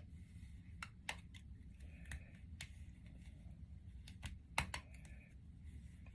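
Faint, irregular small clicks and rustles of hands handling synthetic wig hair while securing the end of a braid with an elastic band.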